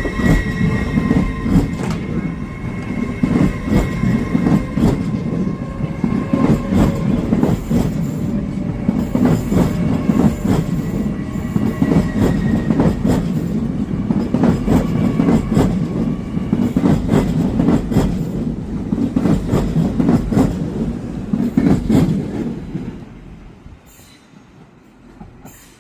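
Train running along the platform, its wheels clicking again and again over rail joints over a steady rumble, with a faint high wheel squeal that fades after a few seconds. The sound drops away about 23 seconds in as the train clears.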